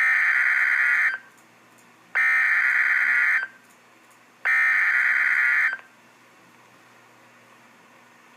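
EAS/SAME digital data bursts from a NOAA Weather Radio broadcast: three identical warbling two-tone bursts, each about a second long and about a second apart. They are the coded header announcing a new severe thunderstorm warning.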